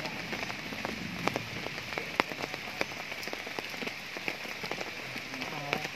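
Steady rain falling, with the irregular sharp ticks of single drops striking hard surfaces close by.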